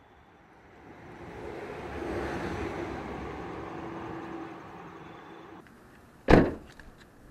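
A car passes by, its noise swelling and then fading over several seconds. Then a car door shuts with a single loud thump about six seconds in.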